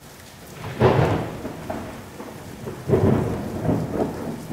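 Thunderstorm sound effect: two thunderclaps, about a second in and about three seconds in, each rumbling and fading, over steady rain.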